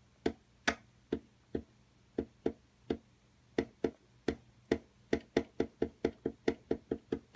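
A run of sharp taps or knocks, spaced unevenly at first and then coming faster, several a second, toward the end.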